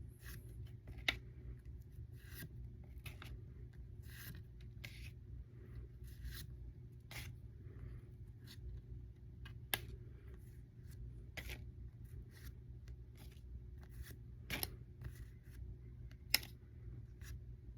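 Trading cards being handled and flipped through one by one: short papery slides and flicks with a few sharp clicks, over a faint steady low hum.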